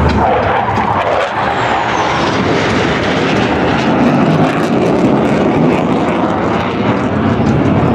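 Loud, steady jet engine noise from U.S. Air Force Thunderbird F-16 Fighting Falcon solo jets flying past, with a faint falling whistle high in the sound about two seconds in.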